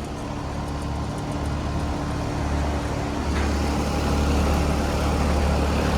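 Bryant Legacy heat pump outdoor unit running: a steady low hum from the compressor and condenser fan.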